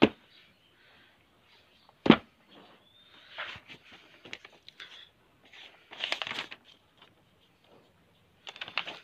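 A paperback book being handled and opened: two sharp knocks, at the start and about two seconds in, then its paper pages rustling and turning a few times.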